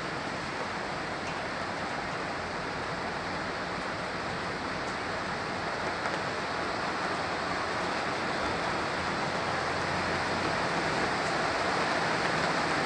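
Heavy rain falling in a steady hiss that grows gradually louder.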